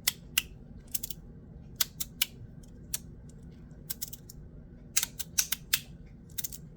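A fidget slider being slid back and forth, its pieces snapping together in sharp clicks. The clicks come irregularly, sometimes in quick pairs or clusters.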